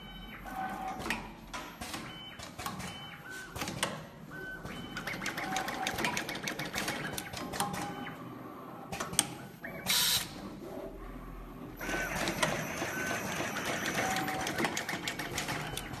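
Automatic multicore cable cutting, stripping and crimping machine running its cycle, a fast mechanical clatter of clicks and knocks from its pneumatic cylinders and feed mechanism. About ten seconds in there is a short burst of air hiss, and from about twelve seconds on the clatter gets busier.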